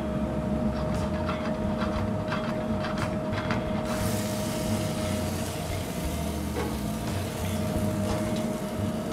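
Steady machine hum of a restaurant kitchen's fans and gas range, with a constant mid-pitched whine and a few light clicks of cookware. About four seconds in, a steady hiss joins the hum.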